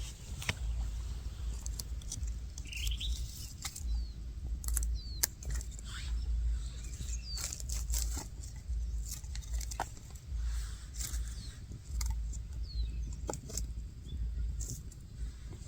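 Wind buffeting the microphone in an uneven low rumble, with scattered sharp clicks and a few short, high, falling chirps, like small birds.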